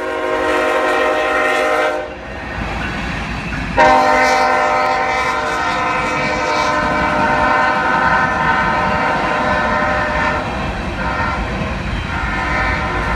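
Norfolk Southern GE ES44AC locomotive's multi-note air horn blowing as the train passes. It sounds a blast of about two seconds, stops briefly, then gives a longer, louder blast that weakens after about ten seconds and picks up again near the end. Underneath is a steady low rumble of empty coal hopper cars rolling over the rails.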